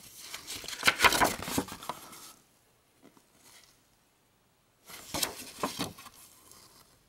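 Paper rustling and crackling as gloved hands unfold a folded registration card, in two bouts: one about a second in, lasting about a second and a half, and a shorter one about five seconds in.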